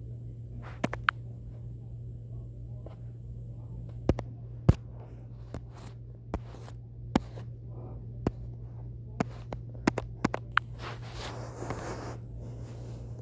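A steady low hum with a dozen or so sharp clicks scattered irregularly through it, and a brief scraping noise near the end.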